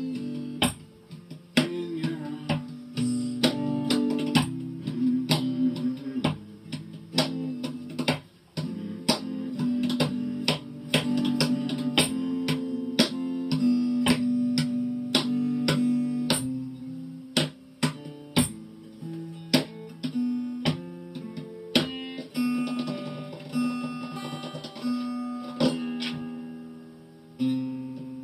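Acoustic guitar strummed in a steady rhythm, its chords ringing, with a run of picked single notes near the end. The sound is heard played back through a computer's speakers.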